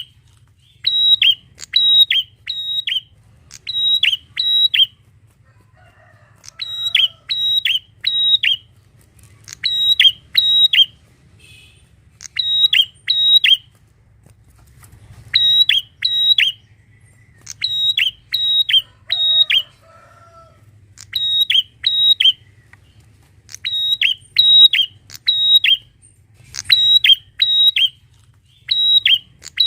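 Prenjak (prinia) singing: repeated bursts of three or four sharp, high chirps, each note dropping slightly in pitch, the bursts coming every second or two with a few short breaks.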